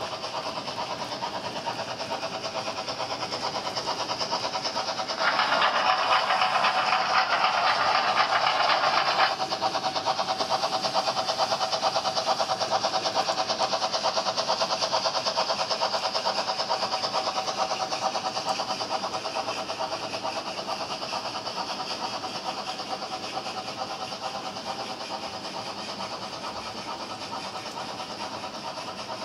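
Model train running on the layout: a steady whirr from the locomotive's motor and the metal wheels, with fine rapid clicking as the wagons roll over the track. It is louder for about four seconds, starting about five seconds in.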